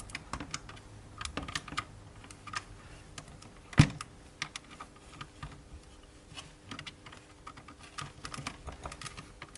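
Scattered light clicks and taps of the 3D printer's Z-axis leadscrew and bracket being pulled and pushed by hand to check for play, with one sharper knock about four seconds in.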